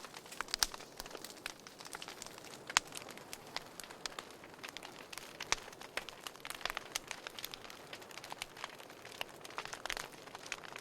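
Wood fire burning in a fireplace, crackling and popping irregularly over a soft hiss, with a sharp pop about three seconds in.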